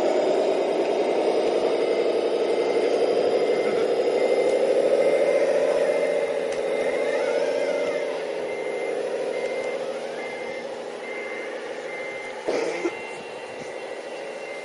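Radio-controlled scale construction models working: a droning engine-like note that swells and then eases off, with a reversing beeper beeping steadily about twice a second. A short knock comes near the end.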